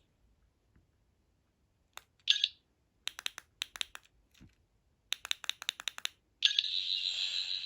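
Toy sonic screwdriver being tried out. About two seconds in there is a click and a brief high electronic buzz, then two runs of quick sharp clicks. From about six and a half seconds its high, pulsing electronic warble starts and keeps going.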